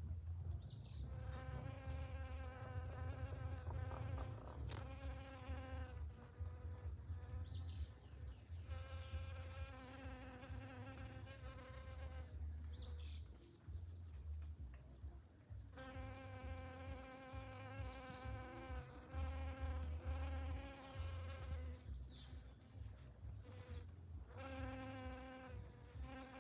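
Bees buzzing at flowers. The buzz holds a steady pitch and comes and goes as the bees fly in and out, with short high bird chirps scattered through it.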